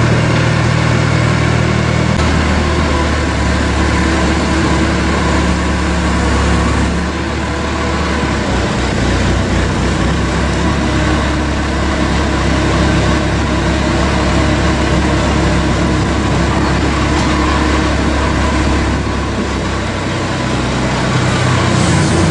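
Engine of a farm loader running steadily while it holds a concrete wall panel on chains, its note shifting about two seconds in and again around eight seconds in.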